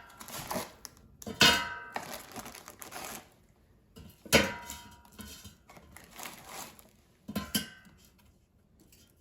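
Frozen flautas being laid one by one into a metal air fryer basket, knocking and clinking against it. There are lighter scrapes and taps, and three louder clanks about three seconds apart that ring briefly.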